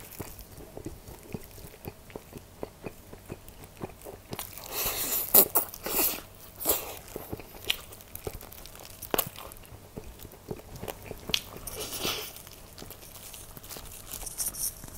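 Close-miked eating of a fried chicken drumstick: biting and chewing the meat off the bone, with light crunches and sharp mouth clicks and smacks, busiest about five to seven seconds in.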